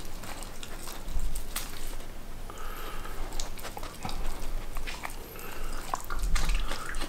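Border collie eating dog-made kimchi bossam (cabbage and pork) from a hand: wet chewing and mouth smacks, with short sharp clicks of the teeth every so often.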